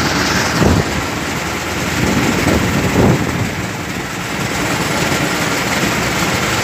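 Mobile crane's diesel engine running steadily while it holds and swings a heavy load, briefly louder about a second in and again around three seconds in.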